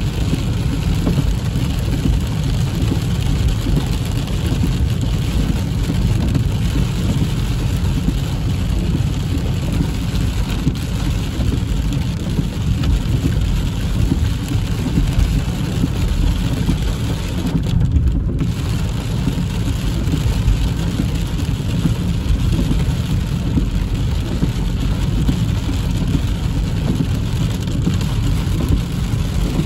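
Heavy rain falling on a car's roof and windshield, heard from inside the cabin, over the steady low rumble of the car driving on a wet road.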